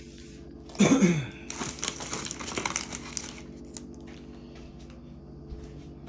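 Plastic and foil trading-card packaging crinkling as it is handled: a short loud sound falling in pitch about a second in, then a couple of seconds of dense crinkling, then scattered small clicks and rustles.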